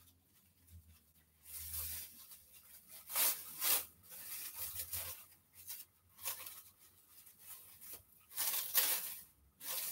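Plastic bag being opened and peeled off a ball of plantain fufu: crinkling, rustling plastic in several irregular bursts, loudest about three seconds in and again near the end.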